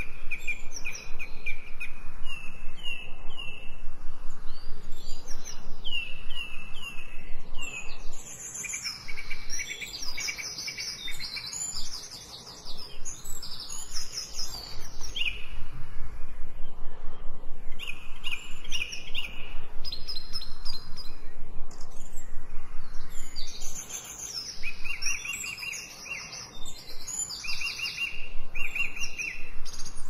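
Songbirds singing in turn, in phrases of quickly repeated high notes and trills, over a steady background hiss.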